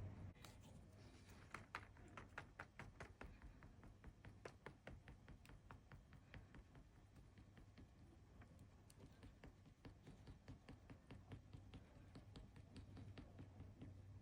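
Light, quick tapping in runs of a few taps a second, like dabbing work on paper at a desk, over a faint low hum.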